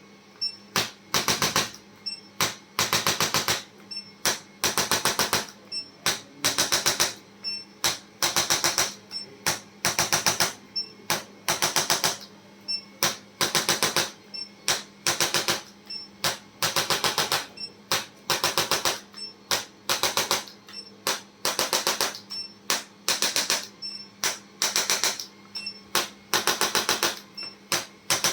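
Handheld electric chiropractic adjusting instrument firing short trains of rapid clicks, one burst about every second with brief pauses between. A faint steady hum runs underneath.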